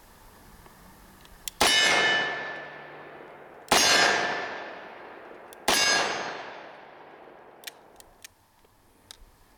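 Three shots from a Smith & Wesson 586 L-Comp revolver, about two seconds apart, each a sharp crack followed by a long ringing decay.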